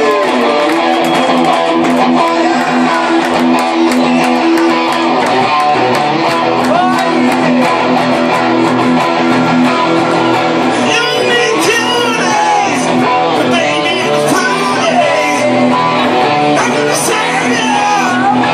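A live rock band playing electric guitar, bass and drums, with a man's voice singing in over the band in the second half.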